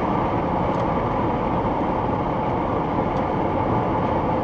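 Steady tyre and engine noise heard inside a car cruising at motorway speed: an even low rumble that does not change.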